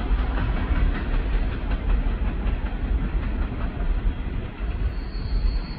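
Hopper cars of a coal train rolling away along the rails: a steady low rumble with light wheel clatter.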